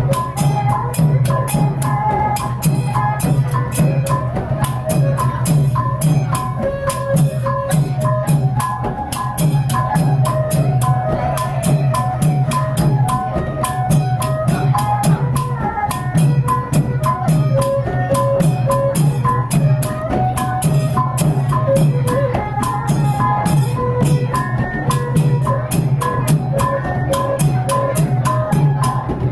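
Background music: a steady, fast beat of drums and percussion under a melody.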